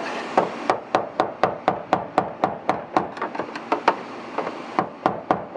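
Rapid, even hammer taps, about four a second with a brief pause partway through, knocking the fuel pump's locking ring on the tank around to loosen it. A steady hiss sits underneath.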